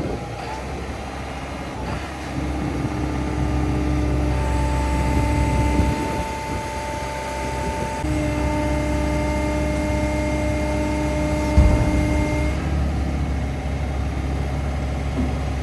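Tracked hydraulic excavator's diesel engine running steadily while the boom and bucket are worked. A steady hydraulic whine comes in twice, then there is a single sharp clunk about two-thirds of the way through.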